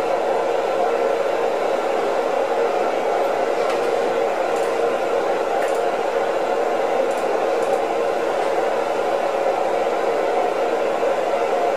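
Steady hiss of radio static from a monitoring loudspeaker, an open channel carrying no voice, with a few faint ticks in the middle.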